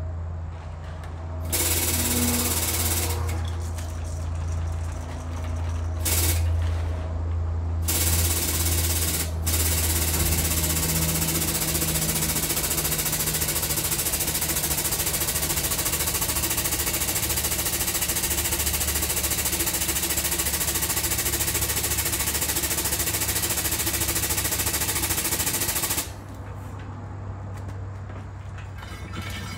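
Air-over-hydraulic truck jack's air pump chattering as it lifts the semi truck: a few short bursts in the first seconds, then a long unbroken run that cuts off suddenly about 26 seconds in. A steady low hum runs underneath.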